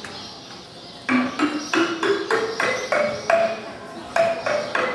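A bell-like tuned percussion instrument plays a run of quick struck notes, about three a second, climbing step by step up a scale from about a second in.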